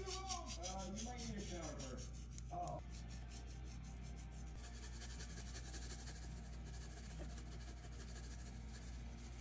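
Seasoning sprinkled by hand over cubed raw beef on a wooden cutting board: a fine, rapid crackling rustle that fades out about seven seconds in. A voice over background music is heard in the first couple of seconds.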